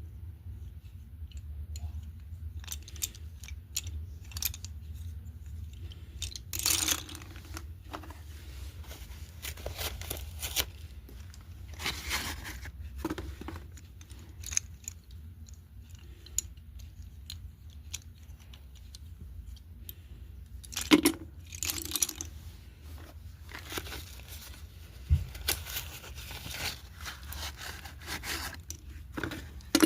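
Red slate pencils crunching and snapping in irregular crisp cracks, the loudest a few seconds apart, over a steady low hum.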